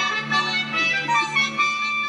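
Television theme music playing, a melody of held pitched notes.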